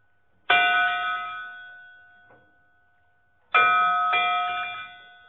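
A metal bell struck three times: once about half a second in, then twice in quick succession about three seconds later. Each strike rings on with clear steady tones and fades slowly.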